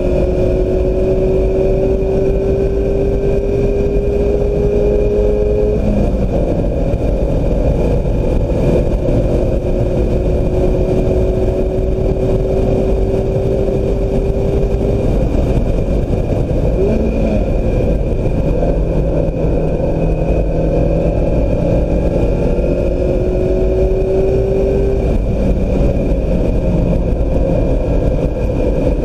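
2016 Mazda MX-5 Miata's four-cylinder engine under load on track. Its pitch climbs slowly and drops at gear changes about six and fifteen seconds in, with a short blip just after, then climbs again near the end. Heavy road and wind noise runs underneath.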